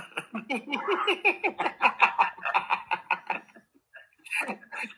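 Hearty laughter in quick repeated bursts, breaking off briefly near the end and then starting up again.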